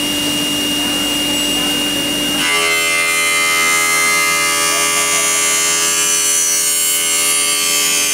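Spindle of a CNC aluminium-profile machining centre running a disc cutter with a steady whine. About two and a half seconds in, the sound abruptly turns into a denser, higher whine as the cutter works the aluminium profile, cutting a 45-degree notch.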